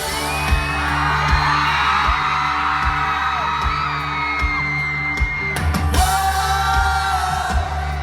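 Pop-rock band playing live: regular drum hits, bass and electric guitar under long held sung notes without words.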